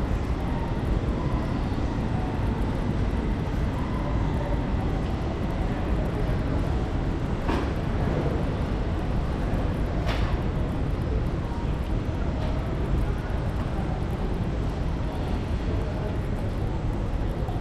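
Steady airport terminal background noise, a low even rumble, with two short sharp clicks, about seven and a half and ten seconds in.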